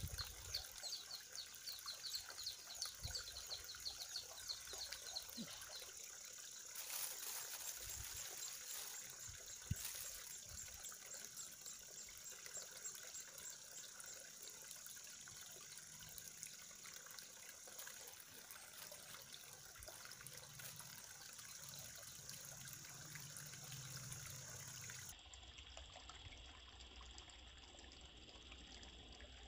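Faint outdoor ambience by a pond: a soft, water-like hiss under a steady high-pitched drone, with a few faint knocks in the first ten seconds. The background changes abruptly about 25 seconds in.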